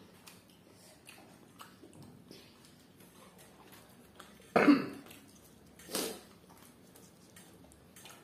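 A person coughs sharply once about halfway through, then gives a shorter second cough or throat-clear about a second and a half later. Faint small clicks and smacks of eating by hand can be heard in between.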